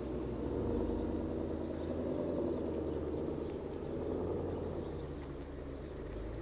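Chevrolet Camaro ZL1's supercharged V8 rumbling steadily at low speed as the car rolls away from the curb, with no hard revving.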